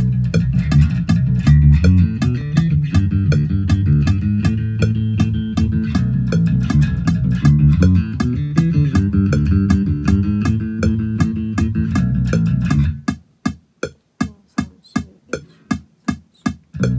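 Electric bass guitar played with the fingers: a busy, continuous bass line, then about thirteen seconds in short, separated plucked notes, roughly three a second.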